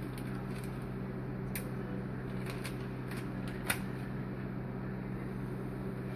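A steady low electrical hum runs throughout, with a few faint scuffs and ticks from handling on a kitchen countertop, and one sharp click a little past the middle.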